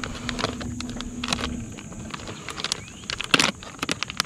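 A plastic soft-bait package crinkling and rustling as it is handled, with a run of sharp crackles that peaks about three seconds in. A low steady hum sounds under the first second and a half.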